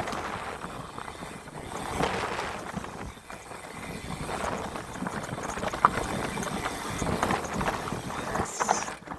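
Full-suspension mountain bike riding over a rooty dirt trail. The tyres roll over the dirt, and the frame and drivetrain rattle, with irregular sharp knocks as the wheels strike roots.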